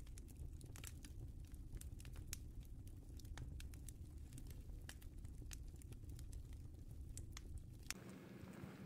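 Wood fire crackling: irregular sharp pops and ticks over a low rumble. Near the end the rumble gives way to a steady hum.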